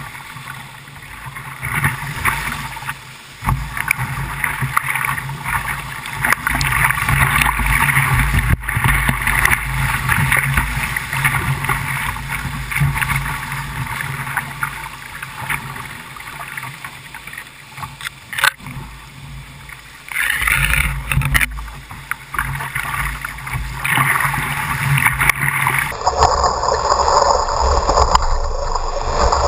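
Whitewater rapids rushing and splashing around a kayak close to the microphone, rising and falling as the boat moves through the waves. Near the end the sound changes abruptly and grows louder as water breaks over the camera.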